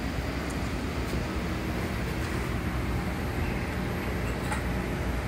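Steady hum and rushing noise of aquarium equipment, pumps and moving water, running without a break.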